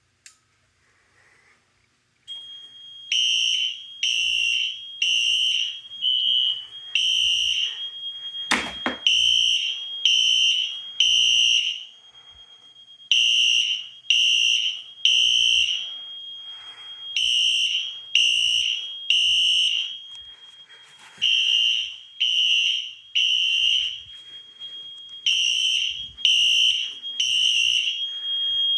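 Fire alarm horns come on about two seconds in and sound the temporal-three evacuation pattern: three short blasts, a pause, then again. A steady high-pitched tone runs underneath. The system is in alarm from a test of a Bosch F220-PTHC detector. A single sharp knock comes near the middle.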